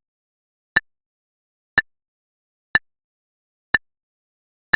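Stopwatch ticking: five short, sharp ticks, one a second, with silence between them.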